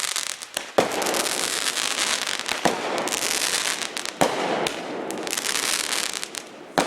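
Fireworks going off: three sharp bangs about a second and a half to two seconds apart, each followed by a long crackling hiss, then a fourth bang near the end.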